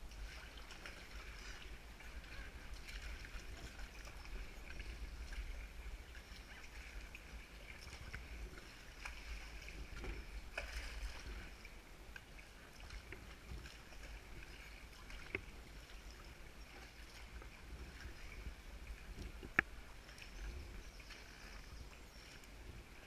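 Kayak paddling: water splashing and lapping against the paddle and hull over a low rumble, with two sharp clicks, one about fifteen seconds in and a louder one near twenty seconds.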